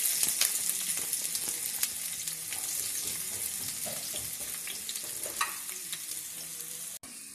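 Freshly added chopped onion sizzling in hot oil in a black wok, with scattered crackling pops. The sizzle slowly fades as the onion settles into the oil.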